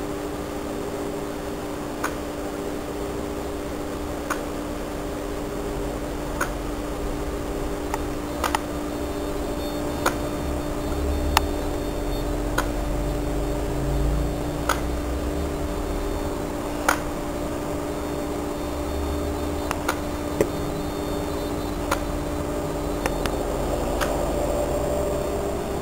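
Electronic throttle body's DC motor driven by a PWM signal: a steady whine of a few fixed tones, with a sharp click about every one to two seconds.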